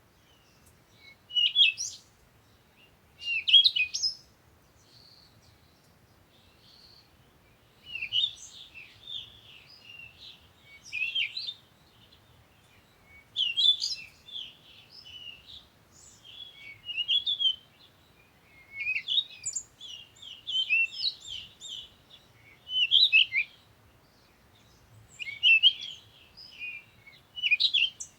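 Small songbirds chirping in bursts of quick, high chirps. There are two short bursts early on, a pause of a few seconds, and then longer runs of chattering that come and go.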